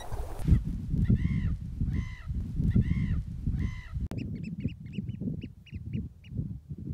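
Birds calling over heavy wind rumble on the microphone. First come four loud arched calls about a second apart, then a rapid run of short, high piping notes.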